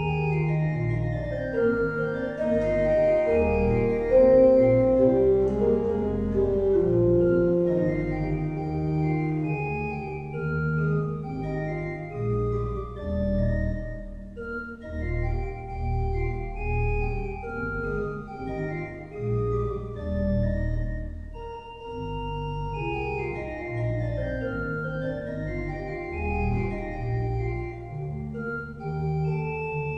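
Instrumental keyboard music, organ-like in tone, with cascading falling runs of notes over held low notes.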